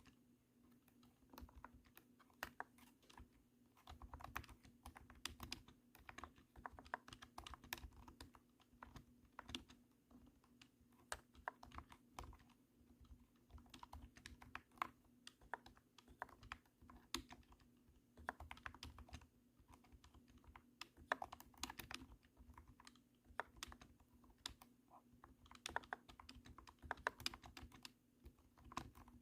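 Typing on a cat-shaped mechanical keyboard: a steady, irregular run of deep, thunky keystrokes in quick bursts. Faint steady hum beneath.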